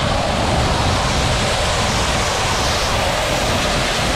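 Steady, loud spray of high-pressure water blasting a rubber floor mat to wash ketchup off it.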